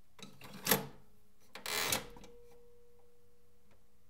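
A cassette tape clacks down into the well of a top-loading cassette deck with one sharp click, then the deck's hinged cassette lid is pushed shut with a short scraping clatter about two seconds in.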